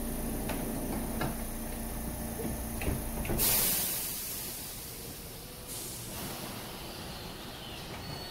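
Passenger door of a JR Shikoku 8000 series express car closing, with a few light clicks and then a sudden loud hiss of air about three seconds in that fades over a second. A second, fainter hiss starts near six seconds, over a steady low hum from the standing train.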